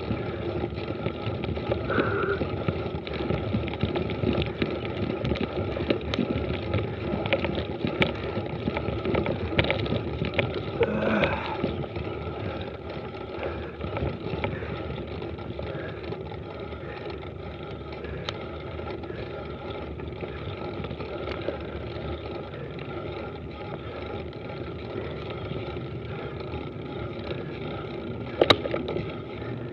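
Mountain bike rolling fast down a dirt road: steady tyre-on-dirt rumble with rattles and sharp knocks from bumps, rougher over the first dozen seconds, then smoother, with one sharp knock near the end.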